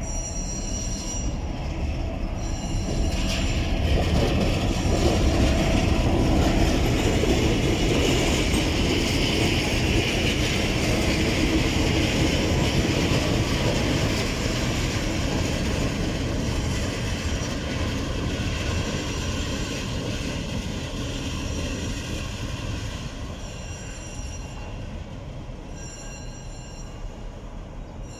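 Transnet Class 36-200 EMD diesel shunting locomotives running past with their engines and wheels rolling along the track, growing louder a few seconds in as a locomotive passes close, then slowly fading away.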